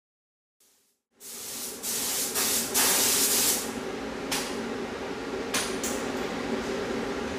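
Compressed air hissing from an air gun in a spray booth, in bursts over a steady hum. The hiss starts about a second in with one long burst, followed by a few short blasts.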